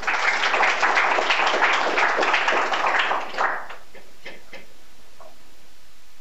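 Audience applauding for about three and a half seconds, then dying away to a few scattered claps.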